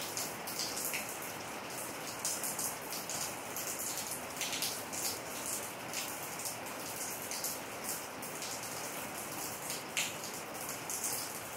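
Heavy rain falling steadily on pavement and roofs, with frequent crisp taps of drops landing close by.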